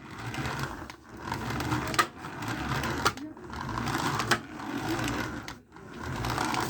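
Toy remote-control buggy's small electric motor and gears whirring in stretches of a second or two, stopping and starting several times as it is driven, with a few sharp clicks.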